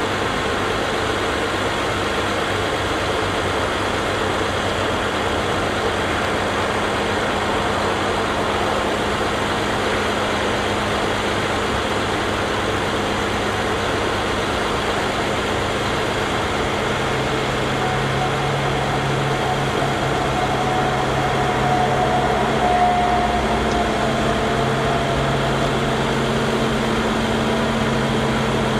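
International 4900 truck's diesel engine running steadily while it powers the Altec aerial lift's hydraulics as the boom raises and extends. About two-thirds of the way through, a stronger low hum and a faint higher whine join in.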